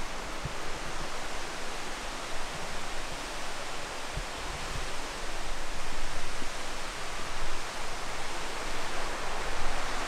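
Steady rushing of a waterfall, with a few faint low thumps.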